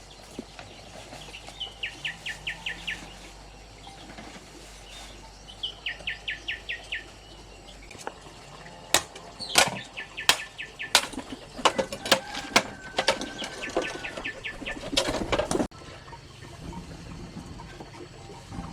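A bird calls twice, each time a quick trill of about six falling notes. Then comes a run of sharp, irregular knocks and clinks of hard objects lasting about six seconds, which stops suddenly.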